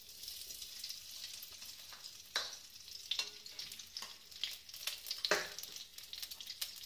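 Solid ghee being spooned from a bowl into a steel kadhai: sharp spoon clicks and knocks, loudest about two and a half seconds and five seconds in, over a steady hiss.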